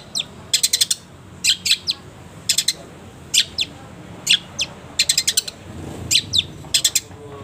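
Long-tailed shrike (cendet) song: sharp, high chirps given in quick bursts of three to six notes, with short pauses between the bursts.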